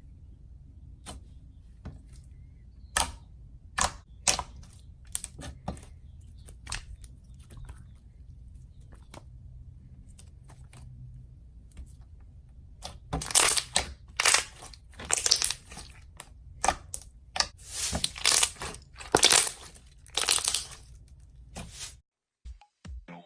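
Slime being squished and pressed by hand, giving scattered sharp clicks and pops that grow into dense crackling bursts in the second half, then stop suddenly near the end.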